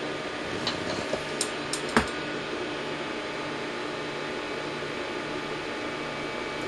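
Steady whir of cooling fans, with a few sharp clicks in the first two seconds, the loudest at about two seconds in.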